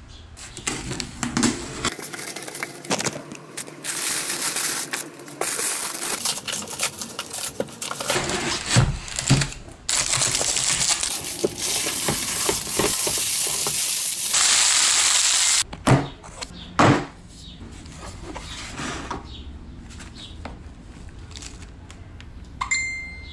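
Unpacking sounds: cardboard and plastic wrapping rustling and crinkling, with scattered clicks and knocks as a plastic tool case is handled and opened. The rustling is densest and loudest through the middle stretch.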